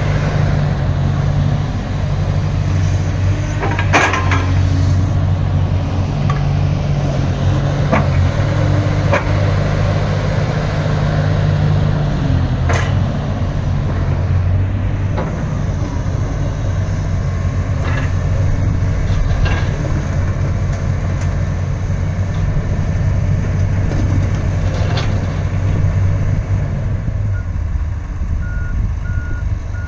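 Komatsu PC360LC-10 excavator's six-cylinder diesel engine running steadily with a deep hum, with a few sharp clicks or knocks now and then. Near the end a faint, regular beeping starts.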